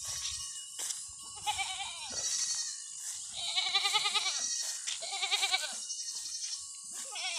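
Domestic goats bleating: four quavering calls, the longest just over a second in the middle and a short one near the end.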